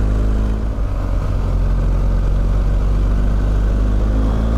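BMW R1250 GS boxer-twin engine running steadily at a light cruise. Near the end its note starts to rise as the bike picks up speed.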